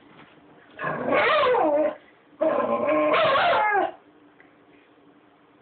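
A beagle giving two drawn-out, wavering whining cries, the second a little longer, from a dog the owner takes to be frightened of the camera.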